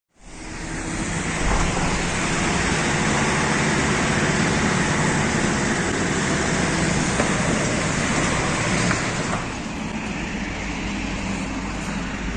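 Vehicle engines running with road and traffic noise, steady, dropping a little in level about nine seconds in.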